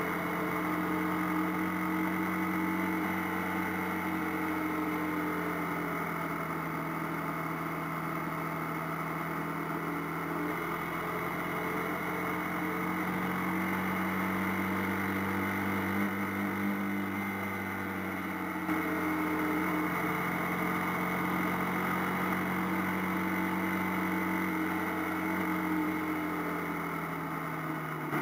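AKT TT 250 Adventour motorcycle engine running under way. Its pitch climbs and eases off a few times as the rider opens and closes the throttle, over a steady rush of wind and road noise.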